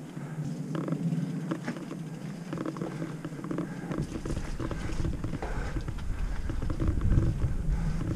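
Mountain bike riding fast along a dirt singletrack: tyres rolling over dirt and roots, the bike rattling with many small knocks over a steady buzz, and a deeper rumble coming in about halfway through.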